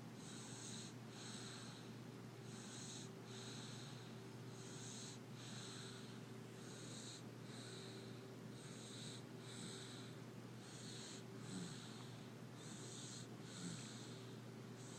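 Sleeping baby snoring softly: a hissy, wheezy snore with each breath, each one in two short parts, about one breath every two seconds, over a faint steady hum.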